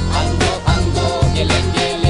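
Malay hip-hop song playing: a heavy bass beat with a melodic line over it.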